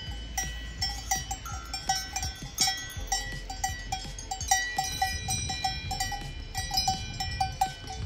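Several cowbells on cattle clanking irregularly, a few strikes a second at several different pitches, over a steady low rumble.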